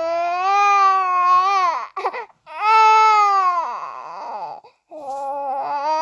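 Baby crying in long, high wails, three in a row, each a couple of seconds long, with a sharp catching breath between the first two.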